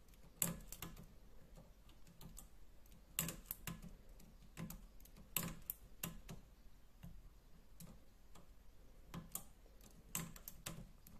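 Knitting machine transfer tool clicking against the metal needles of the needle bed as stitches are lifted and moved to neighbouring needles, to open eyelets in a lace mesh. Sharp, irregular clicks, often two or three in quick succession.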